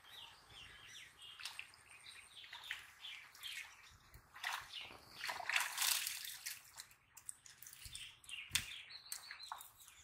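A wet cast net being pulled out of a pond, water splashing and dripping off the mesh, loudest about halfway through, with a soft thump near the end. Birds chirp in short repeated calls throughout.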